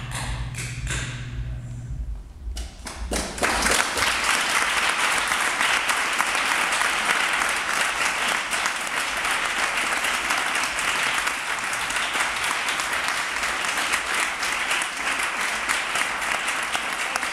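A low steady hum with a few taps stops about two seconds in; then an audience breaks into applause that carries on steadily.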